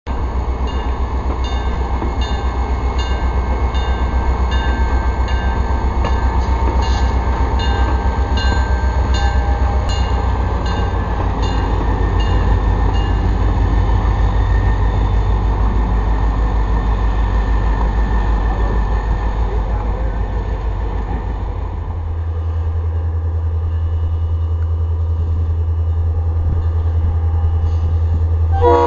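Sierra Railroad diesel locomotive running, a steady deep rumble, with a light regular ticking about twice a second through the first half. About 22 seconds in the rumble shifts lower and steadier.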